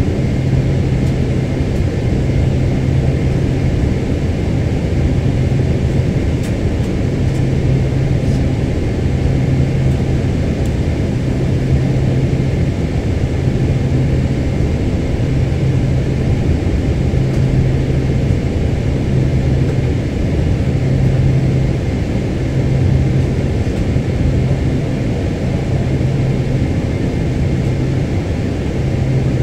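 Steady rumble of a Lufthansa Boeing 747-8 heard from inside the economy cabin, with a low hum that pulses on and off about every two seconds.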